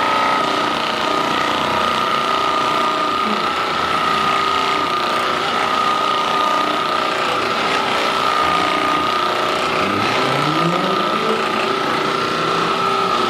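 Handheld percussion massage gun running steadily, a constant high whine over a rattling buzz.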